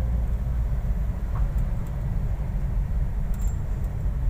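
Steady low rumble of a car's engine and tyres heard from inside the cabin while it drives slowly along a street, with a few faint short ticks about three seconds in.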